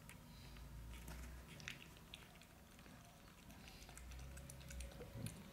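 Shih Tzu puppies feeding at a stainless steel bowl: faint scattered licking and smacking clicks.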